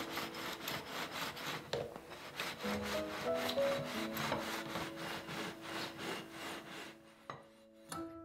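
Rhythmic scraping strokes, about three a second, from a hand-worked kitchen utensil, over soft piano music. The strokes stop about seven seconds in, followed by a single click.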